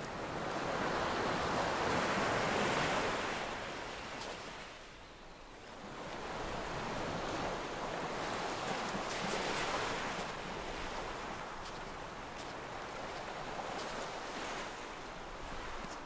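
Small sea waves breaking and washing up on a sandy beach, surging twice before settling into a steadier wash.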